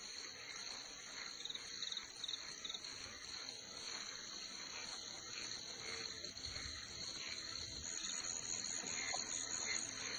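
Insects chirring steadily in a high, continuous drone.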